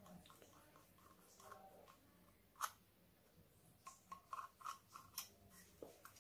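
Faint clicks and crackles of a thin aluminium can being handled and pressed between the fingers. One sharper click comes about two and a half seconds in, and a quick run of small clicks follows about a second later.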